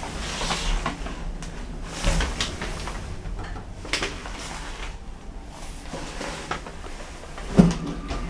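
Otis 2000 hydraulic lift running: a steady low hum with scattered clicks and knocks from the car, and a louder thump near the end.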